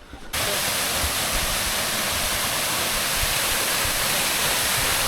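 Waterfall: a steady, loud rush of falling water that cuts in abruptly about a third of a second in.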